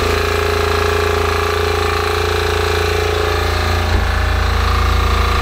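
Diesel generator running steadily after being restarted, its fuel supply restored by a newly changed priming pump. One short knock sounds about four seconds in.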